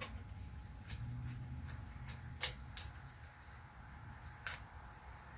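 A few scattered sharp clicks of metal tools and cylinder parts being handled, the loudest about two and a half seconds in, over a faint low hum.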